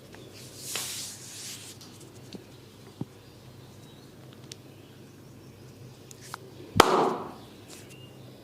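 Barber's massage: hands rubbing over skin or hair, then a single sharp click, and about seven seconds in a loud sharp smack, the loudest sound here.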